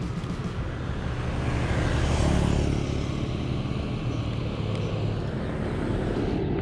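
A motor vehicle passing close by on the street, its engine and tyre noise swelling about two seconds in and its pitch dropping as it goes past, over steady traffic noise.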